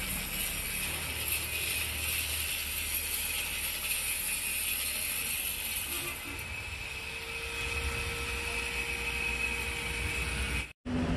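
Power tool cutting into plastered, painted masonry, throwing up dust; the noise eases about six seconds in.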